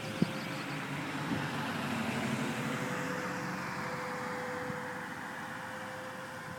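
A car passes, its road noise swelling and then fading away, over a distant tornado warning siren holding one steady tone.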